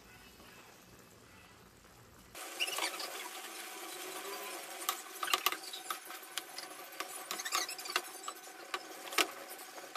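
Chopsuey cooking in a frying pan on a gas stove. It is faint at first, then from about two and a half seconds the sauce sizzles and bubbles with crackles and sharp pops. Near the end a wooden spoon stirs the vegetables and sauce.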